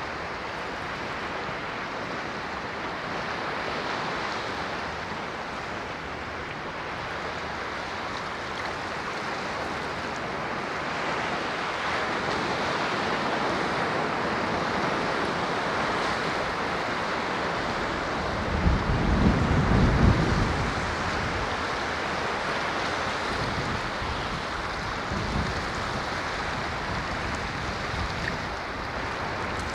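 Ocean waves: a steady rush of surf, with a brief low rumble about two-thirds of the way in and a fainter one near the end.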